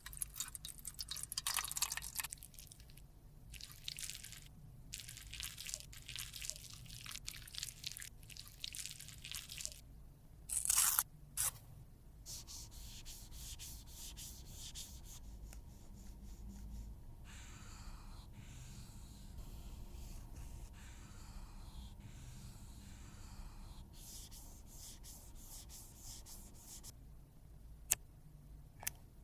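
Close-up scraping and rubbing of makeup product with a small tool: runs of dry scratching with one louder scrape about ten seconds in, then softer smearing and mixing, and a few sharp ticks near the end.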